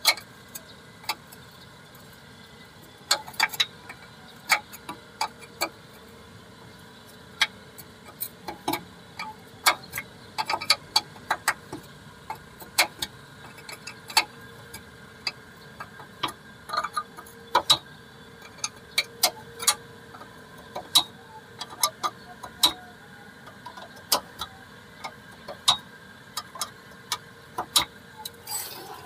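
Hand tools and metal parts clinking and clicking irregularly while a rear drum brake's wheel cylinder and brake pipe are being undone, over a faint steady hum.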